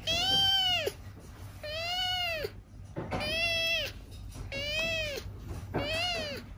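Tabby kitten meowing repeatedly in protest at being held for a claw trim: five meows, each rising then falling in pitch, about one every second and a half.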